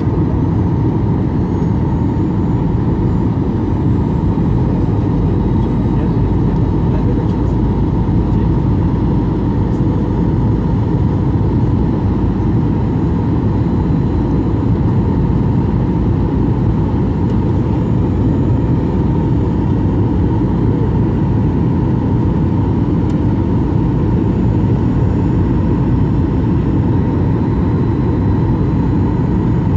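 Boeing 737 cabin noise heard at a window seat during descent: a steady rush of engines and airflow, with a faint steady tone above it and no change in level.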